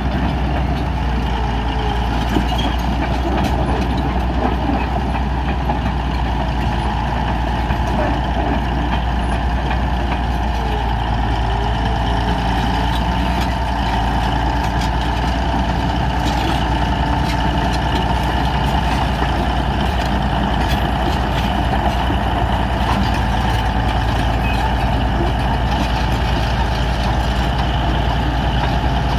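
Heavy diesel engine of a bulldozer running steadily at constant speed while leveling a road.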